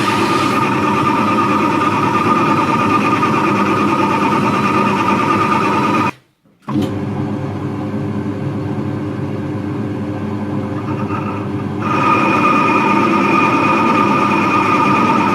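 A workshop machine motor running steadily with a high whine. It cuts out briefly about six seconds in, and the whine grows louder about twelve seconds in.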